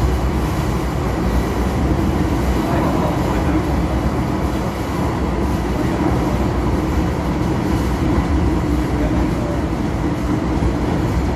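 MTR M-Train electric multiple unit running, heard from inside the carriage by the door: a steady, loud rumble of wheels on rail with a constant low hum.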